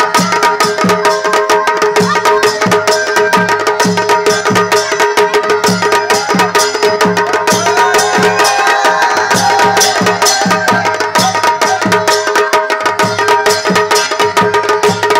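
Instrumental stretch of a Pahari folk song: a quick, even drum beat of about two to three strokes a second under steady, sustained melody tones, with no singing.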